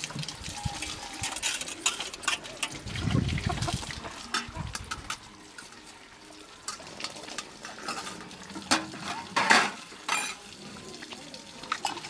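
Stainless-steel plates, bowls and pots clinking and scraping as they are washed by hand, with water running and splashing from a spout. The sharpest clinks come about nine to ten seconds in.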